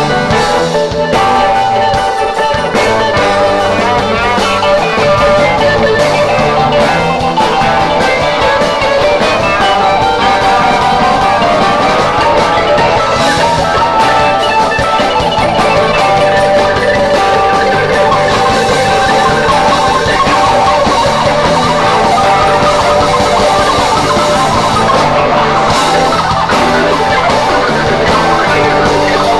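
Live rock band playing an instrumental passage, electric guitar over bass and drum kit, loud and steady throughout.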